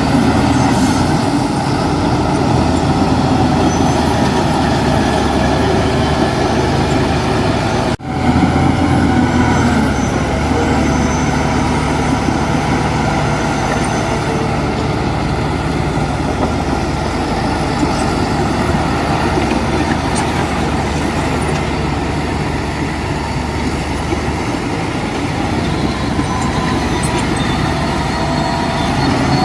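Heavy diesel construction machinery running steadily, with a momentary break about eight seconds in.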